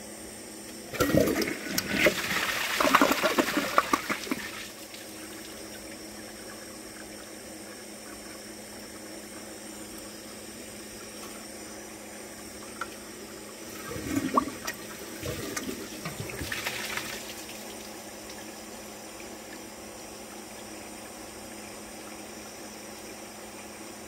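Kohler Embrook toilet flushing: a rush of water starting about a second in and lasting some three seconds, then a second, smaller surge of water about halfway through, over a steady background hiss.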